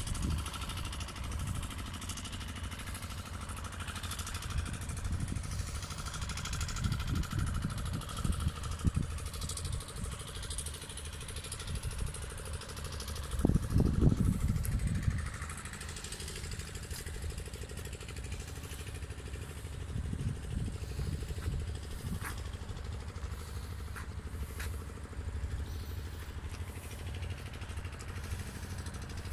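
Low, uneven outdoor rumble, swelling louder for a couple of seconds about halfway through.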